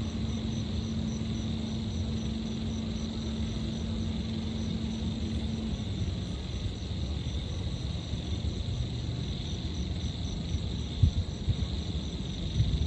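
Steady low rumble of distant city traffic with insects chirping high above it in an even, pulsing chorus. A low steady hum runs under it and stops about six seconds in.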